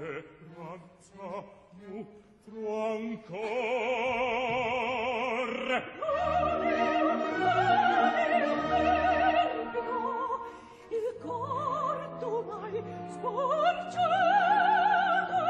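Operatic soprano singing with wide vibrato, accompanied by an opera orchestra. There are short, separated notes at first. The soprano's line enters about three seconds in, and the orchestra fills out beneath her from about six seconds.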